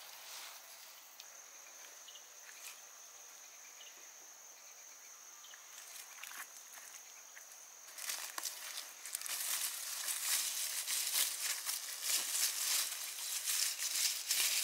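A steady high-pitched insect call over faint ticks. About eight seconds in, loud dense rustling and crackling of leafy plants being handled and pulled by hand starts up and goes on to the end.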